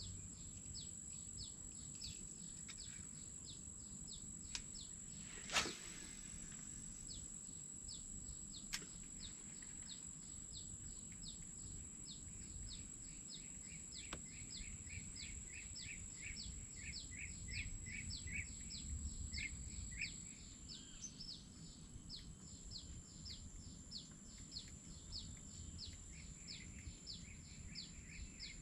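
Quiet tropical forest ambience: a steady high whine under a long run of short, falling chirps, about three a second, with one sharp click about five and a half seconds in.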